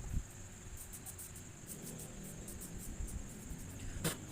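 Crickets chirping steadily in the background, with a low knock at the start and one sharp click near the end from parts being handled.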